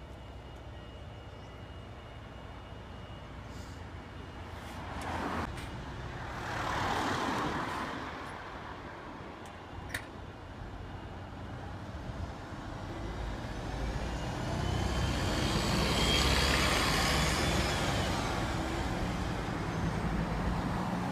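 Volvo city bus idling at a stop, then pulling away and passing by. Its noise swells around five and seven seconds in, there is a sharp click about ten seconds in, and it grows loudest about sixteen seconds in before easing off.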